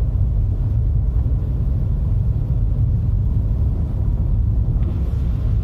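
Steady low rumble of a car driving, heard from inside the moving vehicle; it starts and cuts off abruptly.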